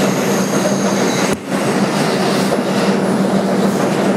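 Ride noise inside a 2001 Bombardier R142 subway car running between stations: a steady rumble of wheels on rail with a constant low hum, dipping briefly about a second and a half in.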